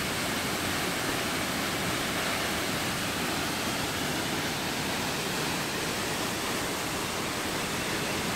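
Tew's Falls, a tall waterfall, rushing steadily: an even, unbroken noise of falling water.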